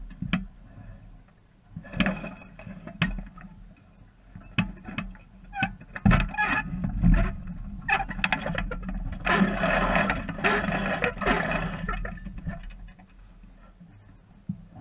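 Knocks and rattles from a small sailboat's rigging and deck as the crew shift across while the boat turns, with a louder rush of wind noise on the microphone a little past the middle.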